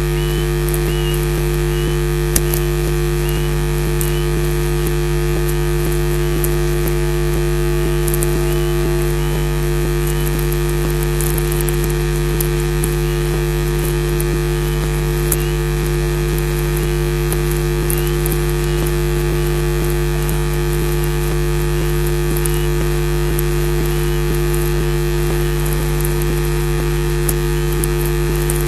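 Steady loud hiss and electrical hum, with faint short high calls repeated about once or twice a second, mainly in the first ten seconds: an osprey calling during its sky-dance display flight.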